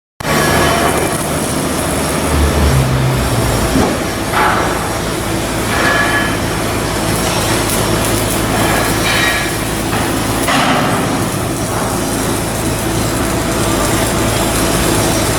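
Shipyard work noise on a slipway: a loud, steady mechanical din with a few knocks in it.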